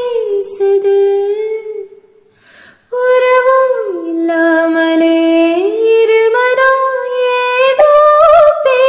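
Background music: a slow melody of long held notes that glide from one pitch to the next, breaking off briefly about two seconds in before resuming.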